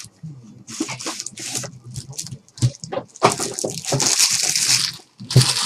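Plastic wrapping on trading card packs being torn and crinkled. There are short rustles in the first half and a longer crinkle of about two seconds after the midpoint.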